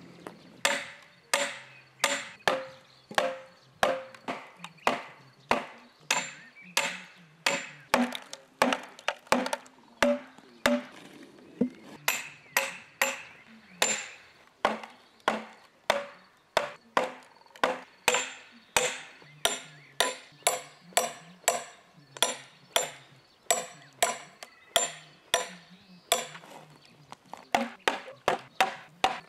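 Hatchet chopping into a wooden log in a steady rhythm of about two blows a second. Each blow is a sharp knock with a brief ring.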